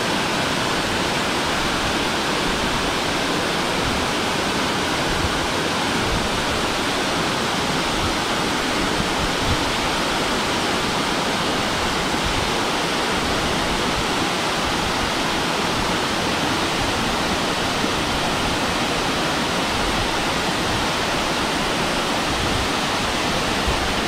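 A waterfall pouring down stepped rock ledges into a shallow pool: a steady rush of water, unbroken throughout.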